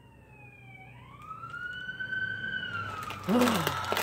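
An emergency vehicle's siren wails: its pitch falls, rises slowly, holds, and starts to fall again. Near the end, plastic packaging crinkles and a person gives a short voiced sound, louder than the siren.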